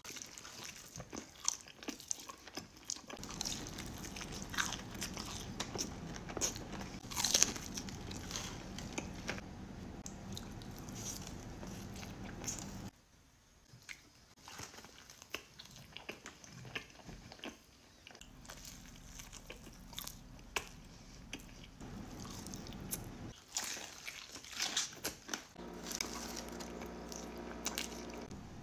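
Close-miked eating: crunching bites into breaded fried chicken tenders and chewing, with many sharp crunches.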